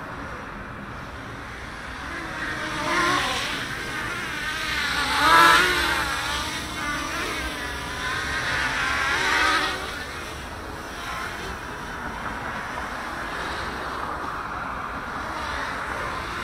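Small quadcopter's four DYS 3100kv brushless motors spinning 5030 propellers in flight: a buzzing whine whose pitch rises and falls with throttle. It is loudest about five seconds in, with another swell near nine and a half seconds.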